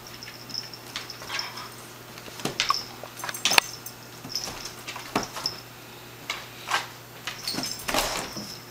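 Scattered clicks, taps and scuffs of a cat and a dog moving about and playing, paws and claws on a wicker pouf and a wooden floor, with one sharper click about three and a half seconds in. A faint high whine comes and goes underneath.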